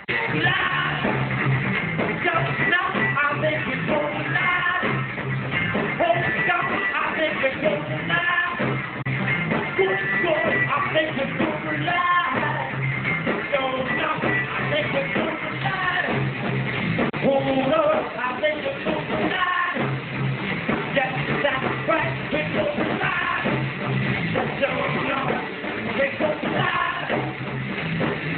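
Live rock band of electric guitar, bass guitar and drums playing loud and dense, kicking back in at full volume right at the start.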